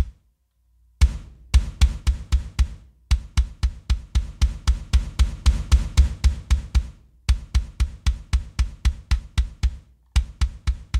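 Kick drum track played back on its own from a rock mix, compressed and clipped so its sustain stays at an even strength. It plays runs of rapid, even double-bass strokes, about six a second at their fastest, broken by short pauses near one second, seven seconds and ten seconds in.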